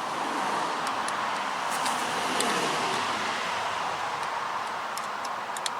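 A car passing on a wet road, its tyre hiss growing louder and then slowly fading, with a few faint clicks.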